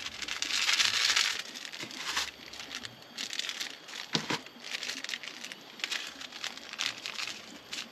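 Crinkling and rustling as hands season mushrooms and spices laid on a banana leaf. A loud rustle lasts about a second at the start, then softer, irregular crinkles follow, with a sharper tap about four seconds in.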